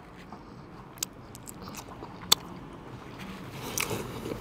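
Person taking a bite of short rib and chewing, with two sharp clicks, the second louder, about one and two and a half seconds in.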